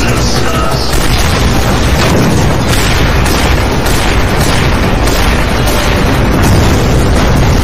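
Battle explosions: several loud booms in quick succession over a dense, continuous rumble.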